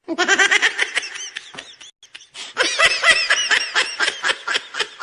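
High-pitched laughing in quick repeated pulses, in two runs with a short break about two seconds in.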